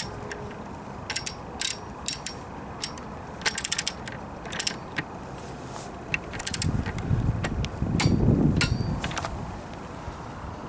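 Ratcheting torque wrench clicking in short runs as the motorcycle's front axle clamp bolts are tightened to 22 Nm. A louder low rumble lasts about two seconds past the middle.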